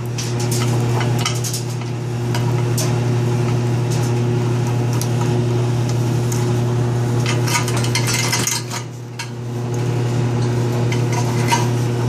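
Light metal clinks and taps of a screwdriver and fingers working at a boiler circulating pump's wiring box, over a steady low hum.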